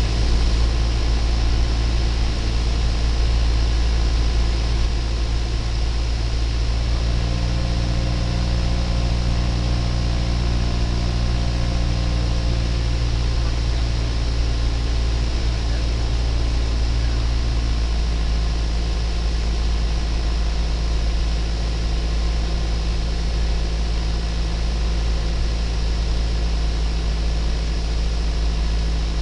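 Cessna 172 Skyhawk's piston engine and propeller droning steadily as heard inside the cabin on final approach. The engine's note changes about seven seconds in and again a little past halfway, as the power setting changes.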